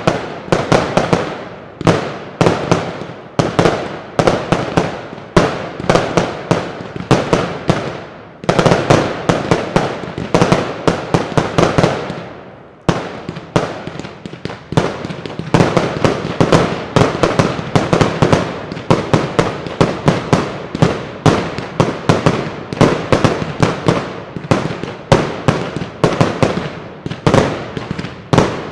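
Professional fireworks display: aerial shells launching and bursting in rapid volleys, a dense run of loud bangs several a second, with brief lulls twice.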